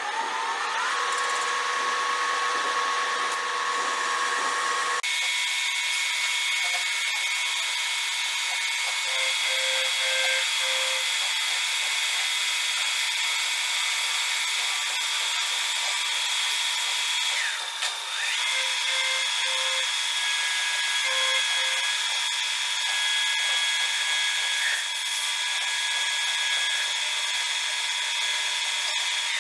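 Metal lathe running with its cutting tool facing the end of a spinning workpiece: a steady high whine over a constant cutting hiss. The lower part of the sound drops away suddenly about five seconds in.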